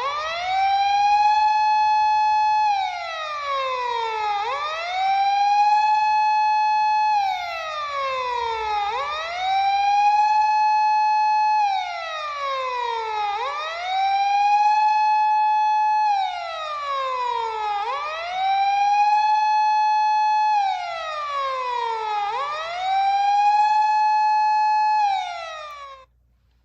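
Model police car's siren sounding a Japanese patrol-car wail: the tone rises, holds high for about two seconds, then falls, repeating about every four and a half seconds, six times over. It starts suddenly and cuts off abruptly near the end.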